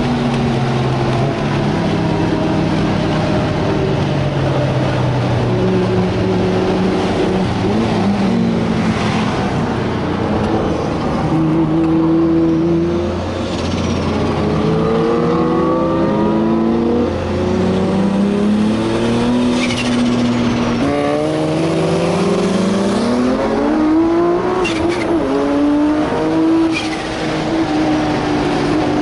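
Turbocharged 3.2-litre RB straight-six of a 1000 hp Nissan Skyline R34 GT-R under hard acceleration, heard from inside the cabin. The revs climb and drop several times as it pulls through the gears.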